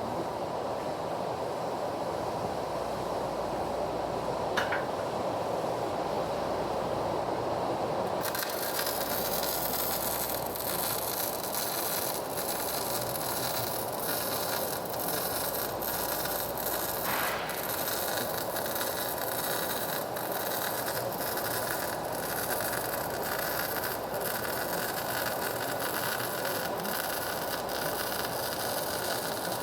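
Electric arc welding: the arc strikes about eight seconds in and crackles steadily until it is broken off near the end, over a steady background hiss.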